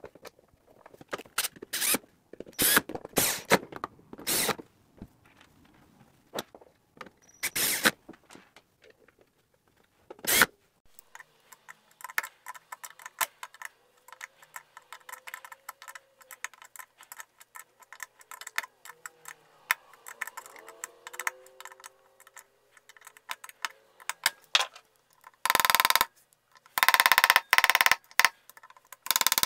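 Hand tools reassembling the metal case of an Aracom PRX150-DAG attenuator: screws and tools clink and knock against the case, then a long run of fine rapid ticking with a few faint squeaks as screws are driven in. Near the end come several louder, harsher rasping bursts.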